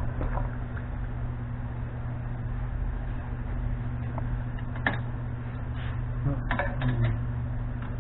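A steady low hum with a few light, scattered clicks of a 13 mm wrench being worked on a carburettor nut: one about halfway through and a short run of them near the end.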